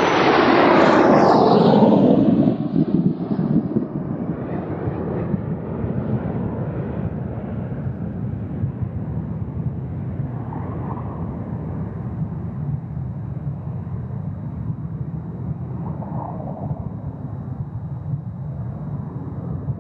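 Jet aircraft engines running: a loud rushing surge in the first two seconds or so, then a steady, lower rumble.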